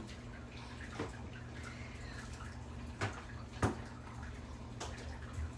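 Juvenile Nile monitor lizard eating a toad: four sharp, wet clicks as its jaws work on the prey, the loudest a little past halfway. A steady low hum runs underneath.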